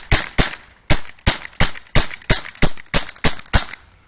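HK USP CO2 air pistol fired in rapid succession, about eleven sharp shots at roughly three a second with a brief pause after the first two. It stops shortly before the end.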